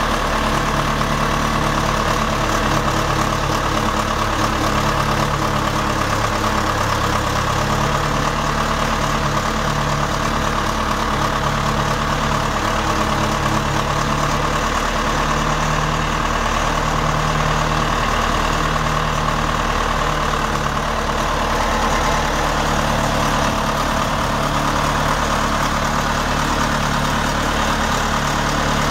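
John Deere four-cylinder diesel engine of a Raygo Barco Mill 100 milling machine idling steadily.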